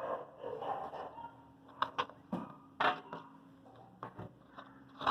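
Slime of oil and nail polish being stirred and scraped in a container, giving a few irregular short clicks and scrapes as it sets.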